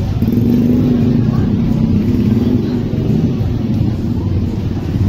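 Street traffic rumble with a motor vehicle engine running close by, its steady low drone strongest for the first few seconds and returning near the end.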